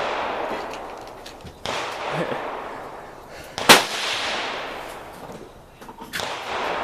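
Three gunshots about two seconds apart, the middle one much louder and sharper, each trailing off in a long rolling echo.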